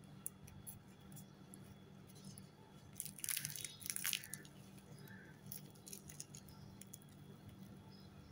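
Flaky fried pastry crust of a meat curry puff crackling as it is pulled and broken open by hand, with a burst of crisp crackles about three to four seconds in and scattered small crackles around it. A faint low hum runs underneath.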